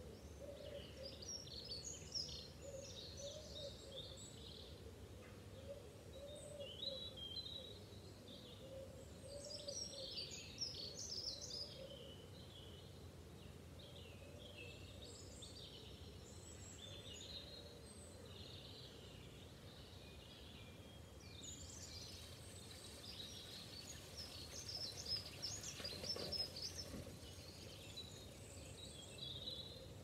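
Dawn chorus of several songbirds: quick, high twittering song phrases coming in clusters, busiest near the start, around a third of the way in and through the last third, over a steady low background rumble.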